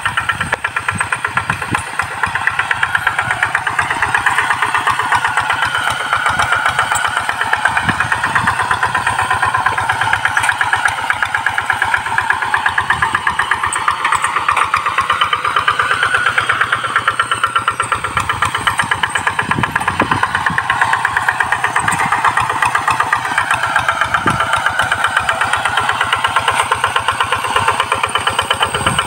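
Two-wheel hand tractor's single-cylinder diesel engine chugging steadily under load as it pulls a harrow through the soil. Its pitch drifts slowly up and down as it works.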